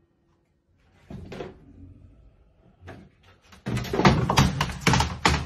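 Plastic laundry basket pulled off the top of a clothes dryer by a cat. There is a brief scrape and a knock, then, about four seconds in, a loud burst of clattering and thuds as the basket and cat fall.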